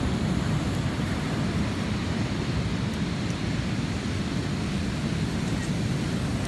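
Steady rumble of wind and ocean surf, with wind buffeting the microphone.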